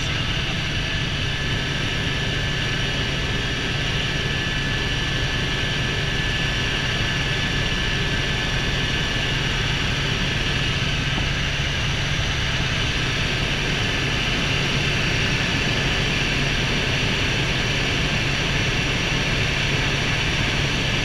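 Helicopter in flight heard from inside the cabin: a steady, loud drone of rotor and engine with a rushing hiss and a thin high whine over it.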